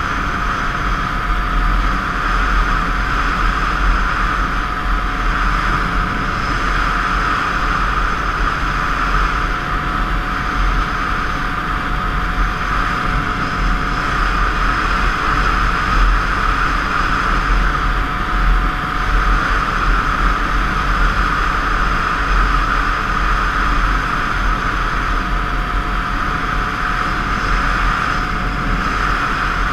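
Two-stroke 50 cc motorbike engine running steadily under way, its pitch swelling and easing a little as the throttle changes, with wind rumbling on the helmet camera.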